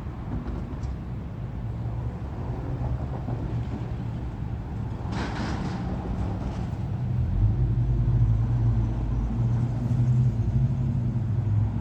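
CSX mixed freight train rolling past, a steady rumble of wheels on rail that grows louder about halfway through, with a short burst of higher-pitched noise about five seconds in.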